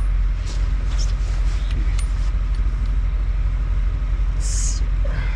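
Steady low rumble of an idling engine, with a few light metal clicks as a snow-chain link is squeezed closed in a long-handled chain repair tool, and a short hiss about four and a half seconds in.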